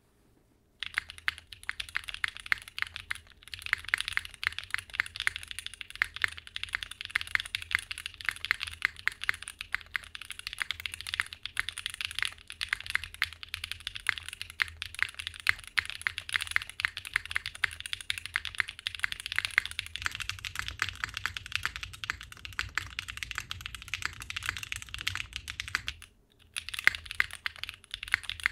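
Continuous fast typing on a Mode65 keyboard with a polypropylene plate and pre-lubed Gateron Weightlessness tactile switches (long-pole POM stems bottoming out on the pole), with a short pause near the end. The keystrokes have the tight, punchy, somewhat clacky long-pole bottom-out sound.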